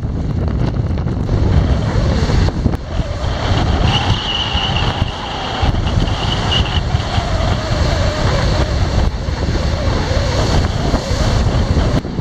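Strong typhoon wind buffeting the microphone over the rush of large, storm-driven surf. A thin high whistle comes in from about four to seven seconds in.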